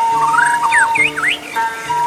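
White-rumped shama (murai batu) singing a quick run of rising and swooping whistles, set in Sundanese relaxation music. A suling bamboo flute holds a long wavering note that stops about a second in, over soft kecapi backing.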